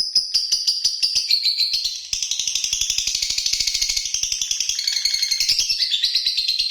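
Lovebird singing a long, fast chattering song of rapid high chirps, about seven a second, with a brief break about two seconds in before it carries on.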